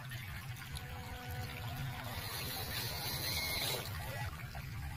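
Shallow, fast-flowing river water rushing and splashing around a small RC crawler wading through it, the hiss of the water swelling louder about two seconds in for a second or two.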